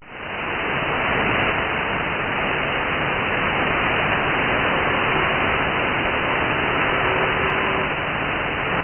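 Radio static from a CB radio receiver on the 11-meter band, heard between transmissions: a steady, even hiss that swells in over the first second, with faint steady whistle tones under it.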